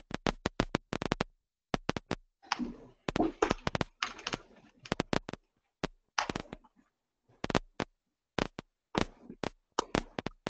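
Computer keyboard typing heard over an open conference-call line: irregular runs of quick key clicks. An indistinct voice comes through briefly about three seconds in.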